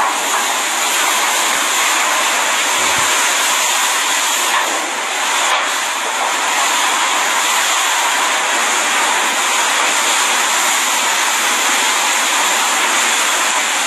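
Category 5 hurricane wind and driving rain, a loud, steady rush of noise without let-up, heard through a window from indoors.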